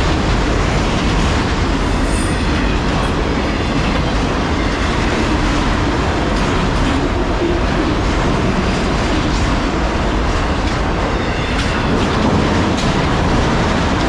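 Autorack freight cars rolling past at about 50 mph: a steady, loud noise of steel wheels on the rails, with occasional clicks as the wheels cross rail joints.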